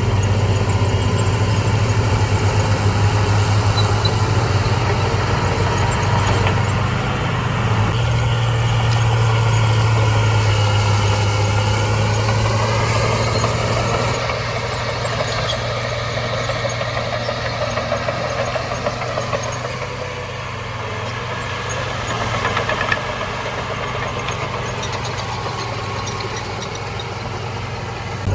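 Heavy diesel engine of earthmoving machinery running with a steady low drone, its pitch climbing for a couple of seconds about halfway through and then settling lower.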